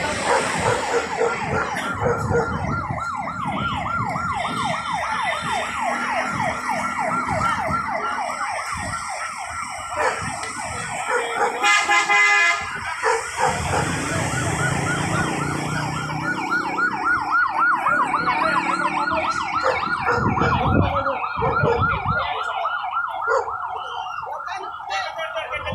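Emergency vehicle siren sounding a fast warble throughout, with a loud horn blast lasting about a second near the middle.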